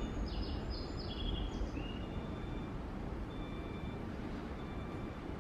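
Train station platform ambience: a steady low rumble, with a few short high chirps in the first two seconds and faint short high tones later.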